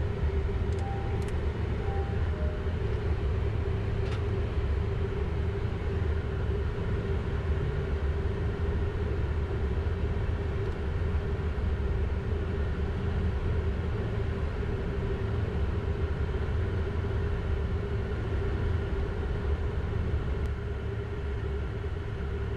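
Steady flight-deck noise of a Learjet 60XR on final approach with gear and flaps down: airflow rumble with a constant engine hum. A few brief soft beeps sound about one to two seconds in.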